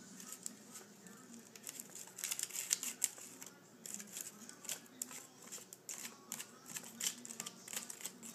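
Small plastic spoon stirring and scraping a water-and-powder frosting mix in a plastic candy-kit tray: quick, irregular light clicks and taps.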